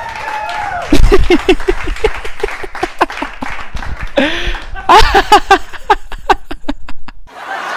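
A man laughing hard into a handheld microphone in two long bouts of short, quick ha-ha pulses, with some crowd noise underneath.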